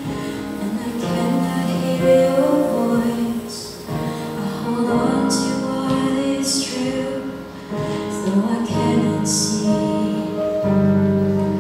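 Live worship song: a woman singing lead into a microphone, with backing singers and a band.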